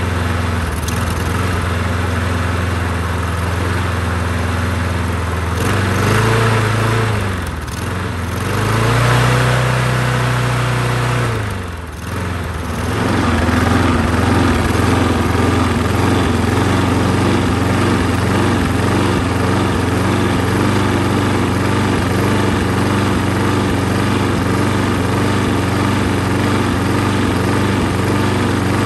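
Briggs & Stratton single-cylinder engine on a Toro Recycler push mower running steadily on its replacement carburetor. Its speed rises and falls twice partway through, then settles back to a steady run.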